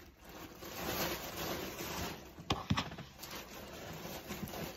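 Clothes being handled and moved on a table, fabric rustling, with a couple of sharp knocks about two and a half seconds in.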